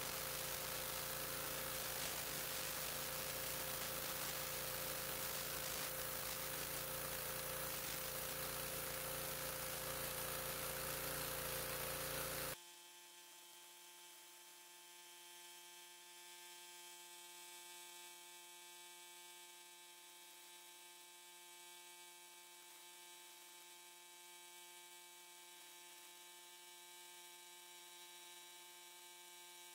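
Gas-engine pressure washer running steadily with the hiss of its high-pressure spray on concrete. It cuts off abruptly about twelve seconds in, leaving a faint steady hum of several tones.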